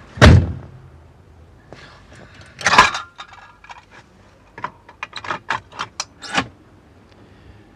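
A car door shuts with a heavy thud just after the start. Then a rustle, and a run of small sharp clicks and rattles in the second half.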